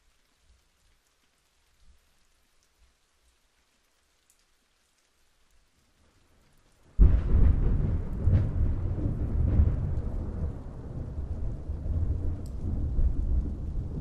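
Thunder during light rain: faint scattered raindrop ticks, then about halfway through a sudden loud thunderclap breaks into a deep rolling rumble that slowly eases off.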